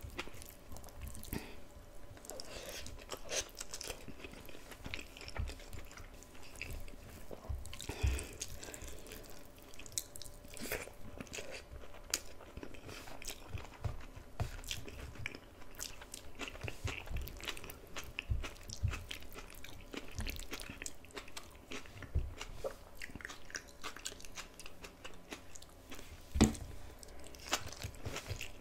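Close-miked mouth sounds of a person eating: steady chewing and biting with crisp crunches, loudest about eight seconds in and again near the end.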